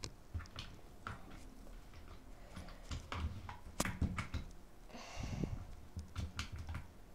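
Handling noises of slime-making: scattered light clicks and knocks, with a short hiss about five seconds in.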